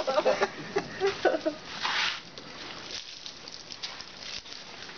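Hot water splashed from a plastic basin onto a hanging pig carcass, scalding it to loosen the bristles for shaving: one brief splash about two seconds in, then a faint hiss of run-off.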